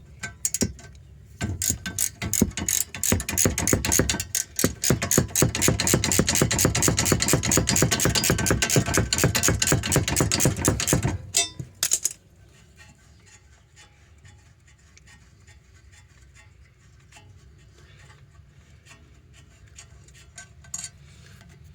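Ratchet wrench clicking rapidly as it winds out a 12 mm brake caliper bolt, a steady run of quick clicks with a brief pause, stopping about eleven seconds in; after that only faint small ticks.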